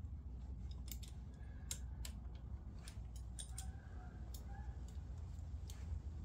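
Irregular sharp metallic clicks and taps of hand tools and small parts, a few in a quick cluster, as the oil filter cover is fitted back onto a Yamaha Raptor 700R engine, over a low steady hum.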